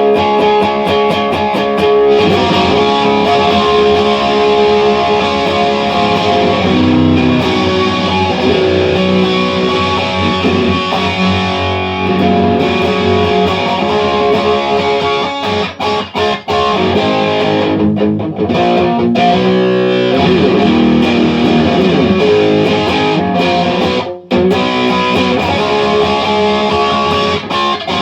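Electric guitar fitted with DiMarzio pickups, played continuously through an amp in a tone test, with changing, sustained notes. It breaks off briefly about halfway through and again near the end.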